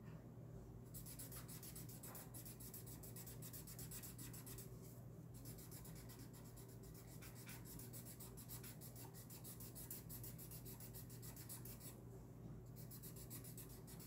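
Faint rapid scratching of a blue marker scribbling back and forth on paper, colouring in a shape, with two brief pauses.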